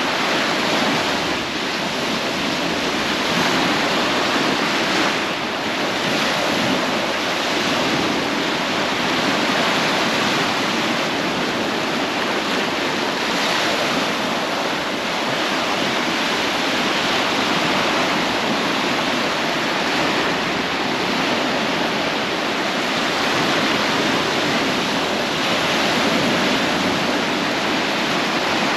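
Sea surf washing onto a beach, a steady rushing noise that swells gently every few seconds as waves come in.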